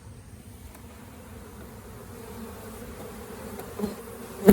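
Honeybees buzzing steadily in a mass around an open hive as a package of bees is installed. A brief loud bump comes at the very end.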